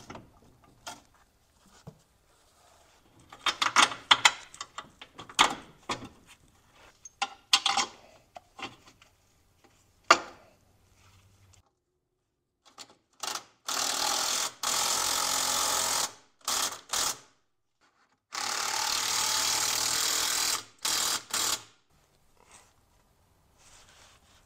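Scattered clicks and clatter of tools and parts while the steering rack is fitted, then a power ratchet runs twice, about two and then three seconds, driving the steering rack mounting bolts in.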